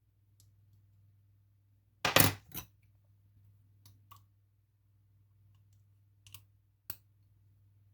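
Small metal parts of a Lockwood Twin padlock clinking and clattering against a hard surface as the lock is taken apart: a loud clatter about two seconds in, then a few lighter clicks.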